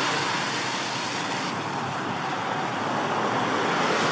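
Road traffic passing close by on a wet road: a steady wash of tyre noise from passing cars and a van.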